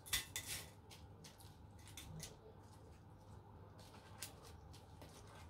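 Faint crackling and rustling of cornflakes as gloved hands press and roll a ball of dough in them, with a cluster of louder crunches in the first half second and scattered small crackles after.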